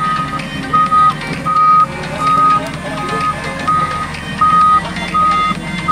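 Heavy construction machine's backup alarm beeping steadily, about eight beeps with a short gap between each, over the low running of a diesel engine.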